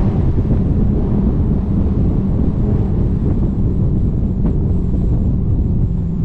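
Dodge Charger SRT 392's 6.4-litre HEMI V8 running at a steady, light cruise, a low even rumble, with wind buffeting the outside-mounted camera's microphone.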